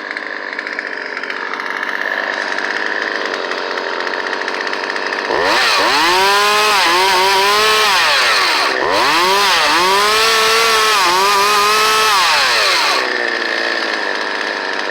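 Gasoline two-stroke chainsaw engine running after a carburetor rebuild and adjustments: it idles steadily, then about five seconds in is revved up and down several times for about eight seconds before dropping back to idle near the end.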